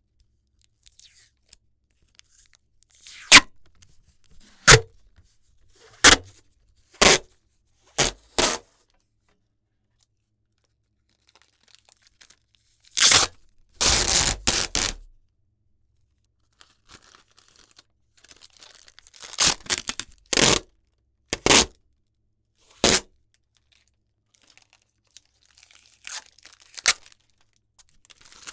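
Packaging tape being peeled in a series of short, sharp rips, with a longer drawn-out pull of several seconds around the middle and brief pauses between groups of rips.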